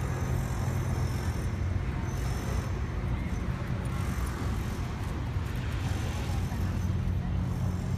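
Steady city traffic rumble: a low, even outdoor hum with no distinct events.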